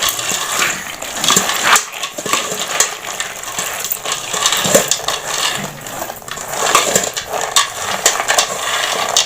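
Raw peanuts being washed by hand in a bowl of water, swishing and rattling with many small clicks against the bowl.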